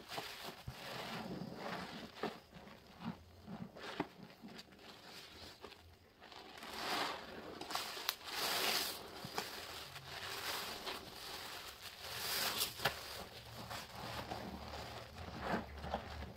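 A large sponge soaked with dish-soap suds squeezed and wrung over and over in a bowl of soapy water: wet squelches and crackling foam, a fresh surge every second or few.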